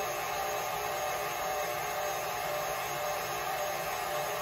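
Stand mixer motor running steadily at medium speed, beating frothy egg whites in a stainless steel bowl.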